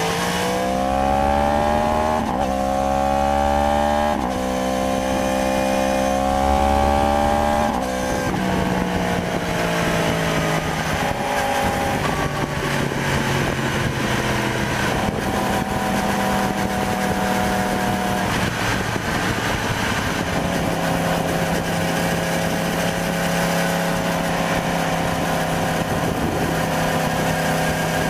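2015 Yamaha R1's crossplane inline-four engine revving up hard and shifting up twice in the first few seconds. About eight seconds in the throttle eases off and the pitch falls, and it then runs at a fairly steady cruising pitch with a few small gear-change steps. Wind rush on the bike-mounted microphone sits under it throughout.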